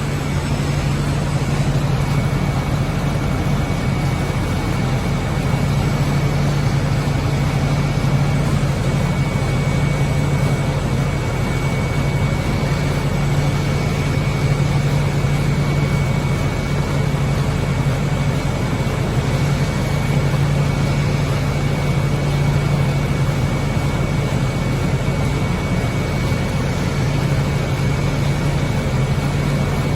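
Automated dog-treat production machinery running steadily: a constant low hum under an even mechanical noise, with a thin steady high whine that starts about two seconds in.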